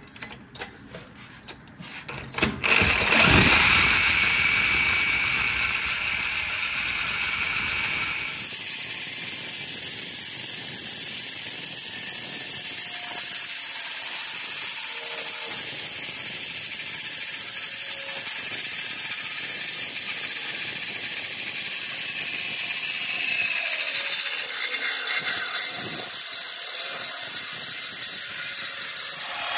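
A few clicks of tool handling, then an angle grinder with a cutoff wheel starts about three seconds in and cuts steadily through a steel frame crossmember, a loud high-pitched whine that steps up in pitch around eight seconds in.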